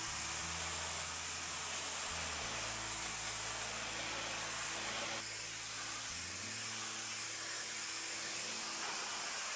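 Pressure-washer lance blasting a high-pressure water jet onto wet sandstone paving along the base of a wall: a steady hiss that changes abruptly about five seconds in.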